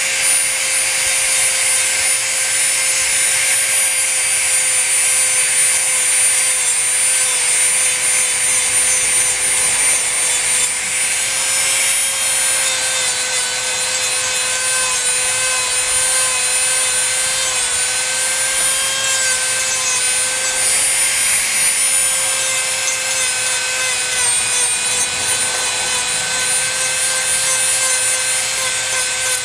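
Dremel rotary tool running steadily at a high-pitched whine, its bit grinding and rubbing old paint off a doll's arm.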